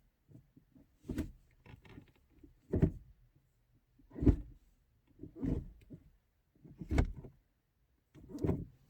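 Manual gear lever of a Mk1 Seat Leon Cupra being moved through the gears on the standard shifter. There are about six clunks, roughly a second and a half apart, as it drops into each gear.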